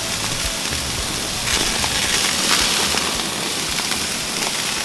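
T-bone steaks and hamburger patties sizzling on a gas grill: a steady, even hiss of fat spitting over the burner flames.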